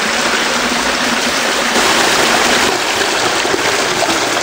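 A small spring-fed creek running steadily over rocks, growing a little louder about two seconds in.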